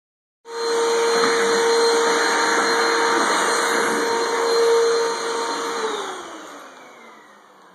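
Vacuum cleaner running with a steady motor whine, starting about half a second in; a little before the end it is switched off and winds down, the whine falling in pitch as it fades.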